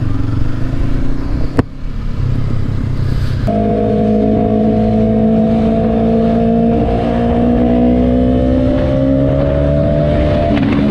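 Motorcycle engine running at low speed with a low rumble and one sharp click about a second and a half in. Then a different motorcycle's engine gives a steady note that climbs slowly in pitch as it rides in traffic.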